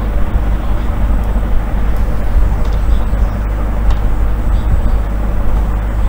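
Steady low rumble with a hiss above it: constant background noise with no speech.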